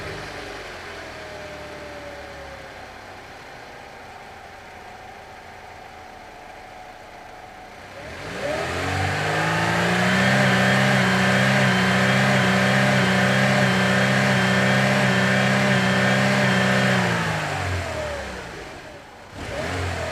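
Engine sound: a quieter running stretch, then the engine revs up about eight seconds in, holds a steady loud drone for several seconds, and winds back down near the end.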